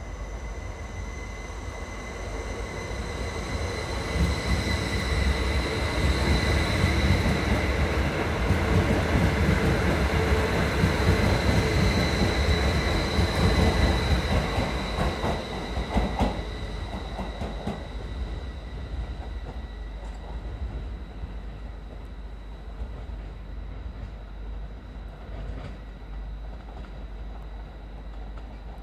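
Northern Class 333 electric multiple unit passing close by on the rails, with a steady high whine over a low rumble that grows over the first few seconds and falls away about halfway through. After that comes the quieter, steady sound of another Class 333 approaching.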